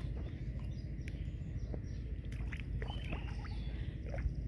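Shallow muddy water splashing and sloshing as a child wades and feels with his hands through a flooded rice paddy, with scattered small splashes over a steady low rumble. A few faint bird chirps are heard around the middle.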